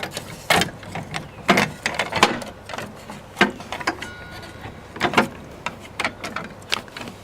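Irregular sharp clicks and knocks of metal and plastic parts being handled and pinned into place while assembling a Harbor Freight table saw, the push pin locking the part onto the saw.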